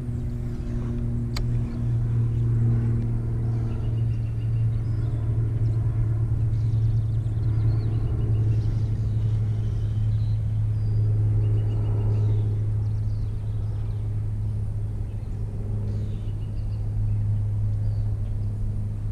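A steady low rumble with faint high chirps now and then.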